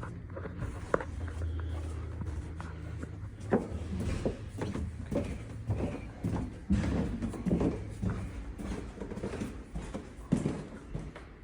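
Irregular light knocks and clatter in a small room, like doors, cupboards or footsteps, over a low steady hum that fades after the first few seconds.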